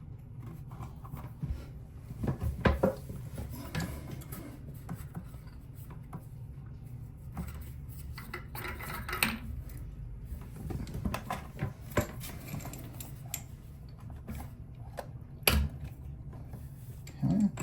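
Bidet attachment fittings and the toilet's water supply hose being handled: hard plastic and metal parts clinking and knocking irregularly, over a steady low hum.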